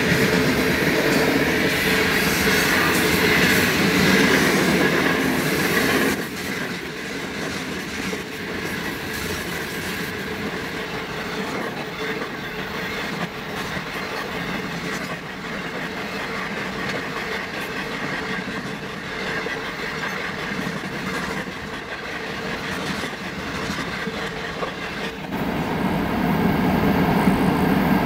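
Freight train rolling on the rails, wheels clattering over the rail joints with some faint wheel squeal. The sound drops abruptly about six seconds in and swells back up near the end.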